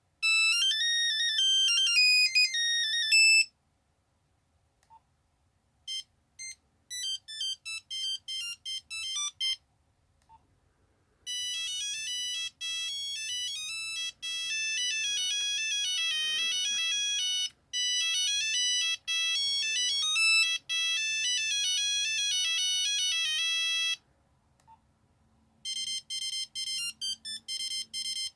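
Nokia 3210 mobile phone playing its built-in monophonic ringtones, several short beeping tunes one after another with brief pauses between them, the longest running about twelve seconds.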